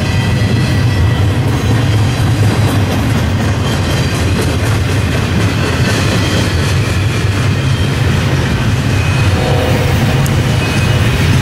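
Double-stack intermodal container cars of a BNSF freight train rolling past close by: a loud, steady rumble of steel wheels on rail with the clatter of wheels over rail joints.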